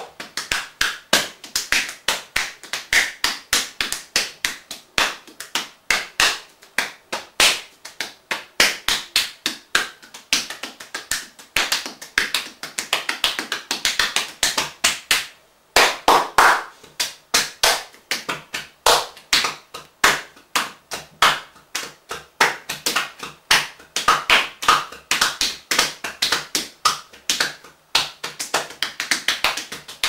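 Rapid, irregular tapping and rubbing contact on bare skin close to the microphone, several sharp taps a second with a brief pause about halfway through.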